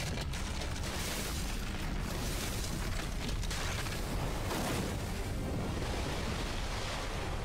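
Storm sound effect: a heavy downpour hissing over deep rumbling thunder, swelling several times.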